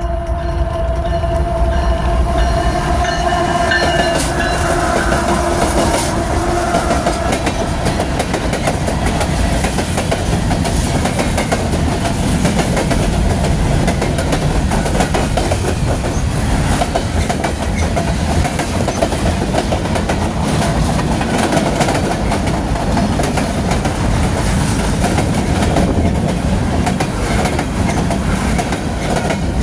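CSX mixed freight train passing close by. The lead GE locomotives give a steady pitched tone that fades over the first several seconds, and then the wheels of the freight cars rumble and clack over the rails.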